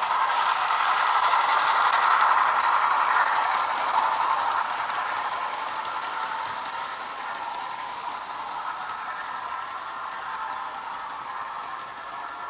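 Hornby A3 'Flying Scotsman' model steam locomotive running along the layout track with a steady rattling, rolling noise. It is loudest about two seconds in and then fades gradually as it moves away.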